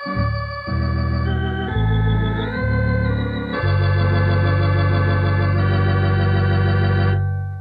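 Thomas electronic organ, heard from an old cassette recording, playing a closing phrase: a few sustained chords over deep pedal bass notes, then a final chord held for about three and a half seconds and released about seven seconds in, dying away.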